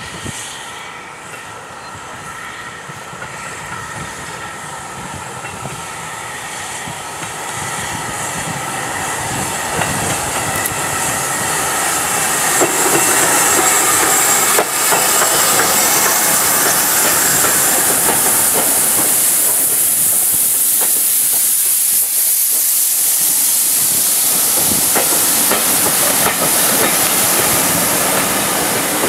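BR Standard Class 5 steam locomotive 73129 running in with its train and passing close by, steam hissing loudly. The sound grows steadily louder through the first half, then the coaches roll past.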